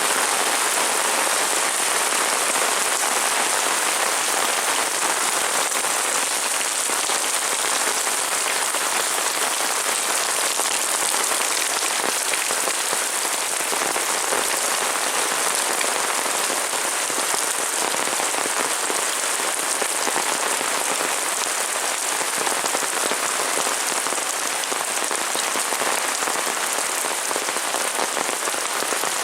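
Heavy rain pouring steadily, a dense even hiss of drops on surfaces.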